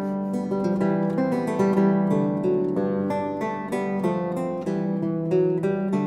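Solo chitarrone (a large bass lute) playing strummed and plucked chords in a steady rhythm, each note ringing and fading.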